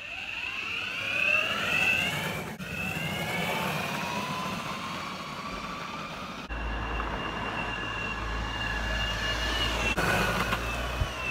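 Boosted Board version 1 electric skateboard's motor accelerating hard from a standstill: a whine that rises steeply in pitch over the first couple of seconds, then holds high and fairly steady at full speed and drops in pitch near the end as the board passes. A low rumble runs underneath in the second half.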